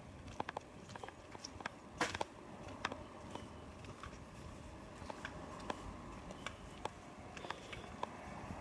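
Footsteps on paving with scattered small clicks and taps, the sharpest about two seconds in, over a faint steady outdoor background.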